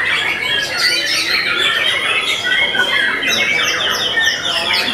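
Several caged white-rumped shamas (murai batu) singing over one another in a dense, continuous tangle of whistles, chatters and trills, with a fast run of repeated notes about three seconds in.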